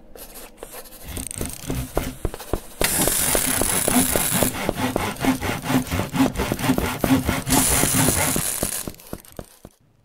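Workshop tool sound effects in a channel intro: quick, even sawing strokes that build up about three seconds in, with two louder stretches of hiss, then fade out near the end.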